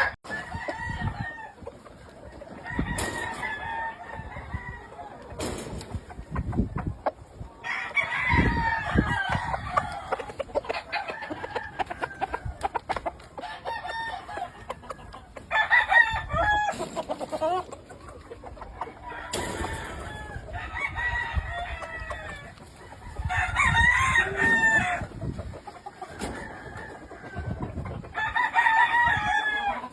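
Several gamefowl roosters crowing in turn, one long crow every few seconds, with clucking between the crows.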